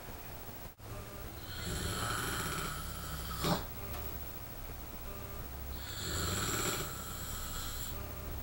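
A man snoring in his sleep: two long snores about four seconds apart, the first ending in a short, sharp snort.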